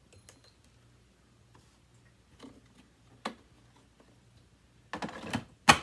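Light clicks and knocks from the plastic dust bin of a Hoover WindTunnel bagless upright vacuum being handled, a few faint ones spread out, then a short rustle about five seconds in and one sharp, loud click just before the end.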